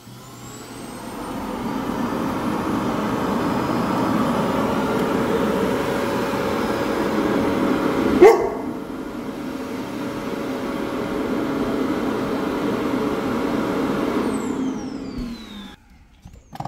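Samsung Jet Bot+ clean station's suction motor running a steady emptying cycle: it spins up over the first couple of seconds, runs loudly and evenly, then winds down with a falling whine near the end. A short sharp yelp-like sound cuts in about eight seconds in.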